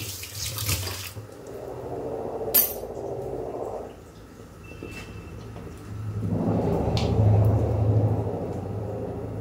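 Kitchen tap running briefly, then the clatter and scrape of pots and dishes being handled, with a few sharp clicks over a steady low hum.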